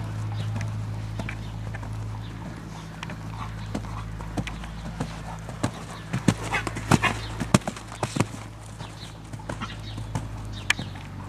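Horse's hoofbeats on a sand arena, irregular sharp clicks and thuds that come thickest about six to eight seconds in, over a steady low hum.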